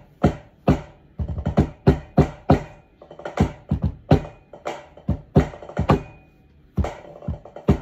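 Tenor drum struck with soft fluffy-headed mallets, playing an uneven fanfare rhythm of single strokes and quick groups, with a short pause about six seconds in.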